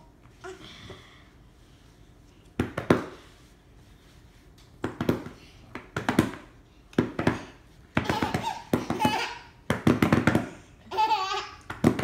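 Hand claps, roughly one a second after a quiet start, answered by a five-month-old baby laughing.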